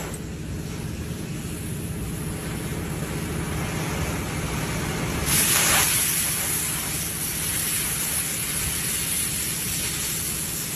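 Oxy-fuel gas cutting torch running with a steady hissing rush, with a louder, sharper hiss about five seconds in for under a second.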